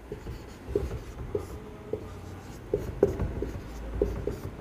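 Marker pen writing on a whiteboard: short, irregular squeaks as each letter stroke is drawn.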